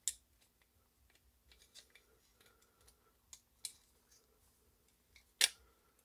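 Plastic clicks and snaps as the Tascam DR-05X recorder's case halves are pried apart by hand: a few scattered sharp clicks, the loudest about half a second before the end as the case comes open.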